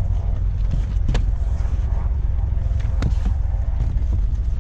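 Steady low rumble with a few sharp knocks, the loudest about a second in and about three seconds in, from books and salvaged items being handled.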